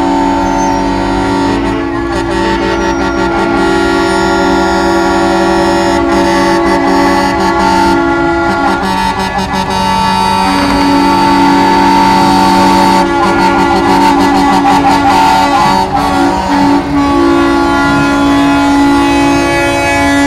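Semi-truck air horns sounding in long, overlapping blasts, several pitches at once like a chord, the chord shifting about halfway through, as the trucks roll slowly past.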